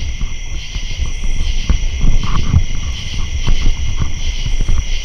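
Steady chorus of insects, a continuous high chirring. Irregular low rumbling and soft knocks sound underneath it.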